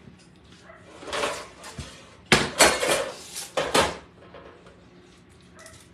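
Kitchen knife cutting a stick of butter in half on a wooden cutting board, the blade knocking against the board. A quick run of sharp clatters comes about two to four seconds in.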